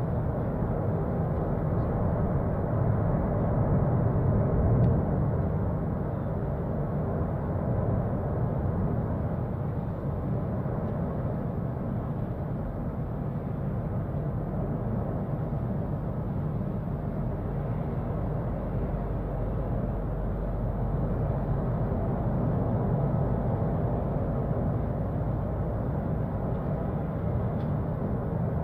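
Continuous deep rumbling of the Cumbre Vieja volcano's lava-fountaining eruption, steady with slow swells in loudness.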